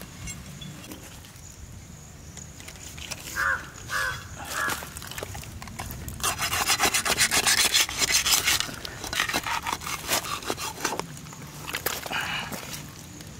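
Knife rasping and sawing through the tough, rough skin and flesh of a giant stingray, with scraping and rubbing as hands work the carcass. A loud run of fast sawing strokes comes about six seconds in and lasts a couple of seconds.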